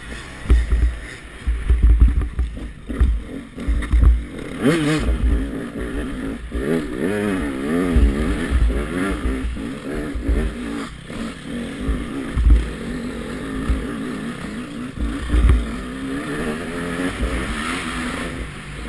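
KTM 200 XC-W single-cylinder two-stroke dirt bike engine revving up and down as the bike is ridden hard over a rough dirt trail, with loud low buffeting on the helmet-mounted microphone.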